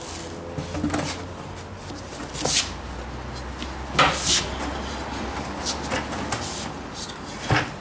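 A side-by-side tire being worked off a beadlock rim by hand: scattered knocks and rubbery scuffs as the tire and rim shift and rub against each other, a few seconds apart.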